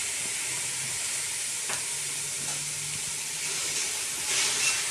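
Shredded carrots and green peppers frying in an aluminium pot, a steady sizzle, with a spatula stirring and scraping through them about four seconds in.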